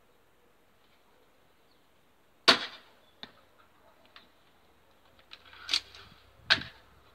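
A 110 lb pistol crossbow firing a bolt: one sharp, loud snap of the string releasing about two and a half seconds in, then a faint knock under a second later. Later come a few smaller ticks, and two louder clicks and clacks of the crossbow being handled.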